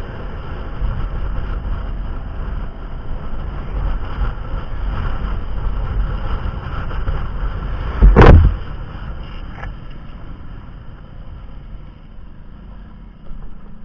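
Low, steady vehicle rumble, with one loud thump about eight seconds in, after which the rumble fades somewhat.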